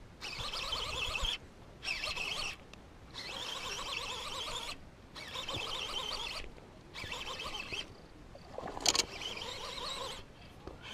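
Baitcasting reel being cranked in repeated bursts with short pauses as a hooked largemouth bass is reeled in, the gears giving a fast ratcheting whir. A brief louder sound comes about nine seconds in.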